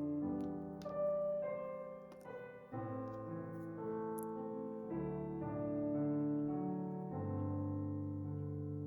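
Slow, soft background piano music, with chords changing every second or two.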